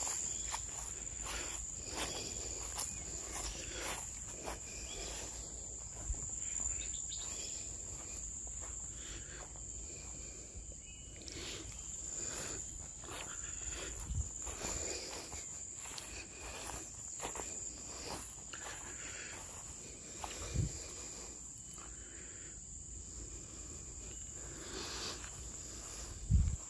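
Insects chirring in a steady high-pitched drone, with scattered rustling and a few dull thumps, the loudest near the end.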